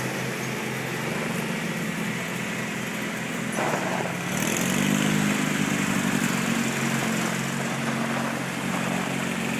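Lawn mower engine running steadily, then speeding up about four and a half seconds in and holding the higher pitch.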